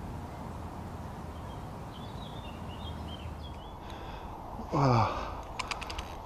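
Steady lakeside background with faint bird chirps, then a man's short exclamation falling in pitch near the end, followed by a few sharp clicks.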